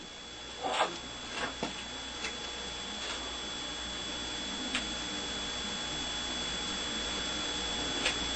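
A few light clicks and knocks as a small magnet block is handled against a frame of disc magnets on steel shafts, most of them in the first three seconds. After that there is only a steady hum with a faint high whine.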